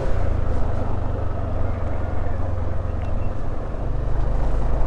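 Yamaha NMAX 155 scooter's single-cylinder engine running steadily while riding, a continuous low rumble mixed with road noise.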